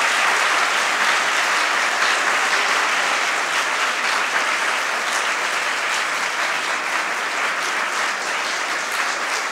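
A large lecture-hall audience applauding steadily, the clapping easing off slightly towards the end.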